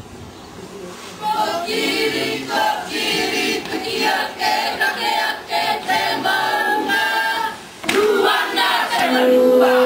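A group of voices singing together, starting about a second in and breaking off shortly before the end. Near the end a single long, steady horn note begins.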